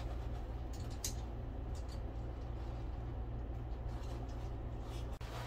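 IWISS HX-50B long-handled hex lug crimper squeezed onto a heavy battery cable lug: a few faint clicks and creaks about a second in, over a steady low hum.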